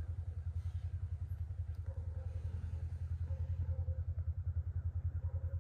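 Polaris RZR side-by-side's engine idling: a steady, low throb pulsing rapidly and evenly.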